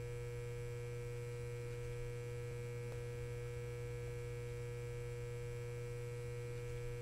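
A steady low hum with several faint constant tones above it, unchanging throughout.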